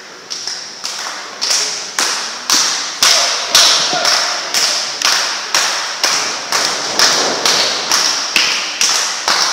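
Rhythmic hand clapping, about two sharp claps a second, each with a short echo off the hall. It grows louder over the first three seconds and then holds steady.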